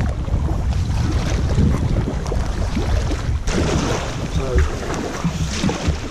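Kayak paddle strokes splashing in the water while wind and rain buffet the boat-mounted camera's microphone with a steady low rumble. The splashing gets brighter and closer about halfway through as the camera swings round.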